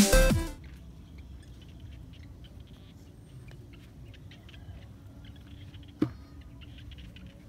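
Electronic intro music cuts off half a second in, then faint rustles and ticks, like bare feet on grass. About six seconds in, a single sharp hollow knock as a plastic bucket is set down on the ground.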